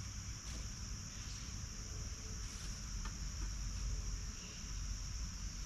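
A steady, high-pitched insect chorus chirring without a break, with a faint low rumble underneath and a few small clicks.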